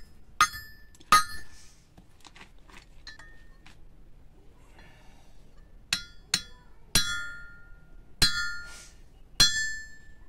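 Hammer blows on a small metal stand and pipe, each a sharp clank that rings briefly: two blows about a second in, a run of lighter taps, then five more blows in the second half.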